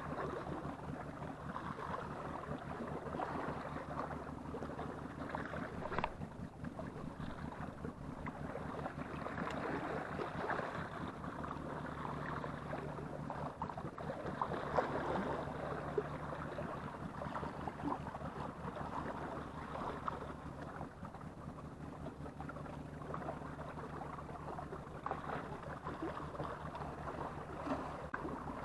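Steady wash of sea water, with a low, even hum underneath.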